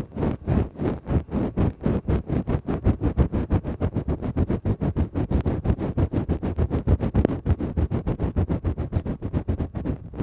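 Lace-gloved fingers rubbing and scratching right against the microphone in quick, even strokes, several a second, close and loud in the ear.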